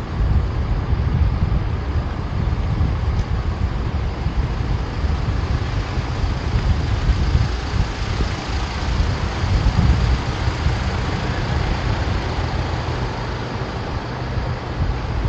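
Street traffic noise mixed with a low, gusty wind rumble on the microphone of a camera moving by bicycle.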